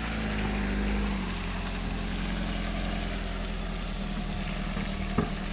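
Classic Lada Zhiguli sedan's four-cylinder petrol engine running steadily as the car drives slowly through deep mud on a dirt track, with one brief knock about five seconds in.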